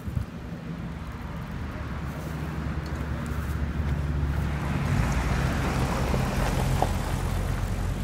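A motor vehicle's low engine hum growing louder as it approaches, with a rushing road noise swelling about five seconds in and easing slightly near the end.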